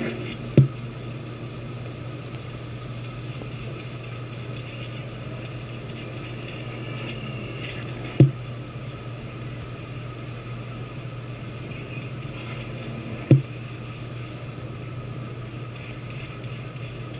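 A steady low hum with three short thumps: one just after the start, one about eight seconds in and one about thirteen seconds in.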